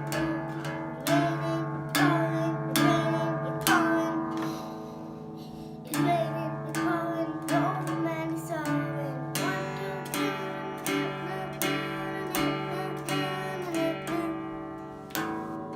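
Background music: plucked guitar-like strings over steady sustained chords, with a melody line that may be a singing voice.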